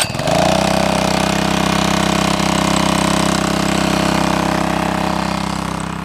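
Small 2 to 3 horsepower gasoline engine on a portable water pump starting up, its pitch rising quickly in the first half second, then running steadily at speed while pumping water to a shower. It gets slightly quieter near the end.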